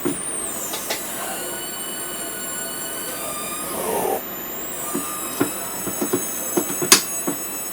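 Electronic noise from a homemade circuit-bent noise box, the Budda Box: several high-pitched whining tones sounding together, bending in pitch at the start, with a brief rougher burst about four seconds in and scattered crackles and clicks near the end.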